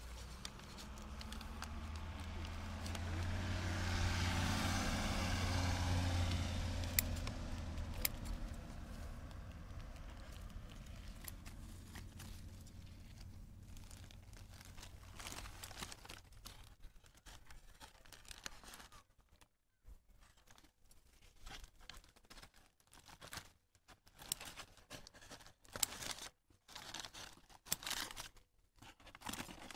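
A vehicle passes, swelling to a low hum over the first several seconds and fading away. Then comes irregular crackling and rustling as a paper bag that covers a fresh graft on an almond seedling is handled and torn open.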